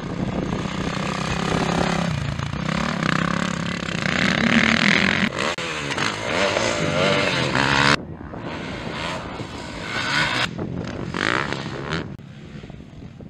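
Motocross dirt-bike engines revving hard, their pitch climbing and falling as the riders work the throttle and gears, with abrupt changes about five and eight seconds in. The engine sound drops away near the end.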